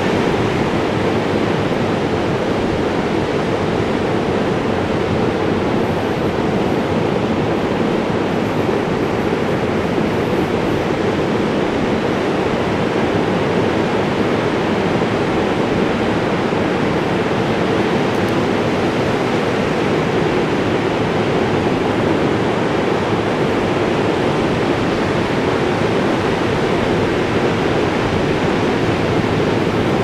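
Ocean surf breaking along a beach, heard as a continuous, steady rushing roar.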